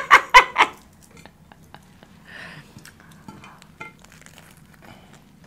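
Quiet eating sounds: bacon sandwiches being handled and bitten into, with scattered soft clicks and rustles, after a brief burst of laughter at the very start.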